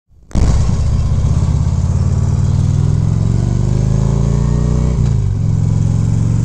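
Harley-Davidson touring motorcycle's V-twin engine pulling away under throttle after a brief dropout at the start, its revs rising steadily for about four seconds. The revs drop about five seconds in, then hold steady.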